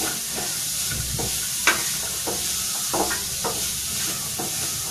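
Chopped beans and carrots sizzling in hot oil in a kadai, with a spatula scraping and knocking against the pan in several irregular strokes as the vegetables are stirred.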